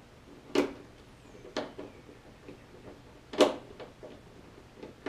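Sharp plastic clicks and knocks of a Jeep Wrangler JK taillight housing being handled and fitted against the body. There are three louder knocks, the loudest about three and a half seconds in, with lighter ticks between them.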